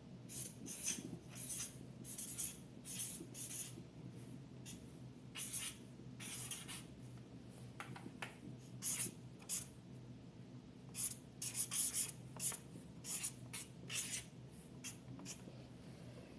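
Handwriting: a pen or marker scratching out words in short strokes, in quick runs with brief pauses between.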